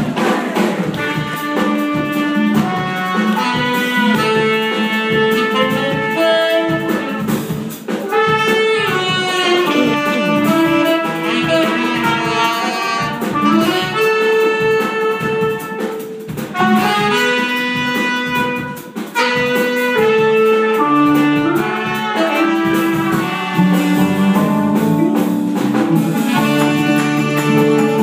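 Jazz-fusion band playing live: saxophone and trumpets play held melody lines together over drums, hand percussion, keyboards and electric guitars.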